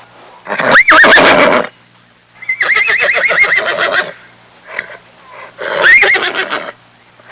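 Horse whinnying three times, each call a quavering neigh with a wavering pitch; the middle call, about a second and a half long, is the longest.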